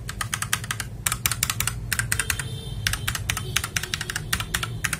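Fast typing on a GamaKay LK67 mechanical keyboard: rapid runs of keystroke clacks with short breaks between bursts. The board is stock and unmodded, with no added foam or sound dampening.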